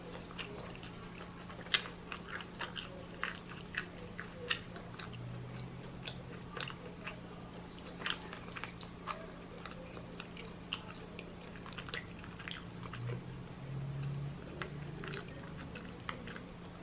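A person chewing a fried chicken sandwich close to the microphone, with irregular wet mouth clicks, smacks and crunches.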